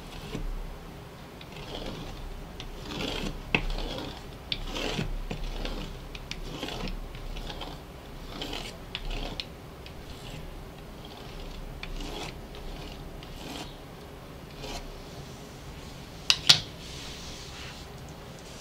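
A blade drawn through thin, flour-dusted pancake dough against the work surface, cutting it into long strips: soft scraping strokes with light clicks, then a pair of sharp clicks near the end.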